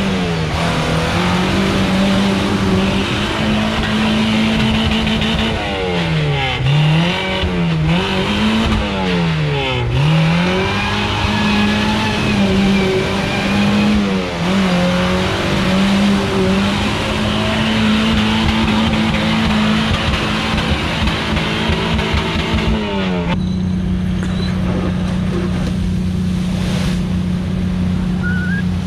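Off-road 4x4 engine held at high revs with the wheels spinning in loose sand, the revs dropping and climbing again several times. About 23 seconds in it changes suddenly to a steadier engine note as a 4x4 drives through deep water.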